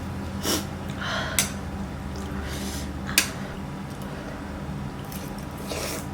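Close-miked mukbang eating sounds: several short, wet chewing and bite noises, with a sharp click about three seconds in, over a steady low hum.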